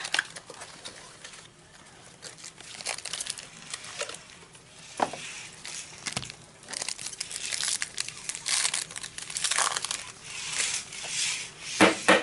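Trading-card pack wrappers crinkling and tearing as packs are opened, in irregular rustling spurts that grow denser in the second half.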